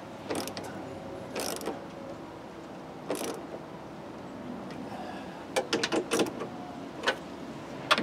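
Socket ratchet clicking in short runs as the bolts that clamp the window glass to the power window regulator are tightened, with a quicker string of clicks a little past halfway.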